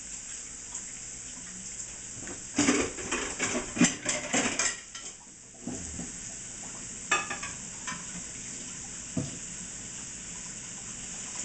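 Filet mignon searing in oil and butter in a small pan on high heat, with a steady sizzle. Pans and utensils clatter in a run of knocks a few seconds in, then knock once or twice more.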